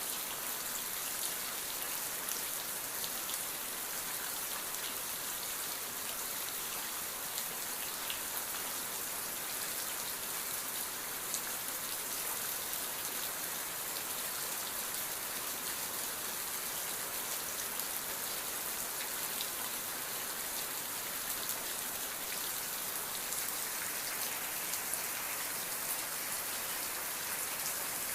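Steady rain falling, a dense even hiss with many small drop ticks throughout.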